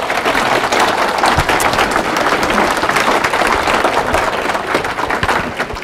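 Audience applauding, many hands clapping in a dense, even patter that tapers off near the end.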